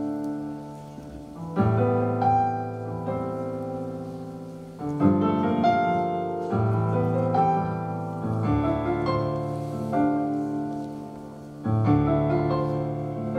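Piano accompaniment playing an instrumental break in a slow song, with no voice: full chords struck four times, about every three and a half seconds, each ringing and fading before the next.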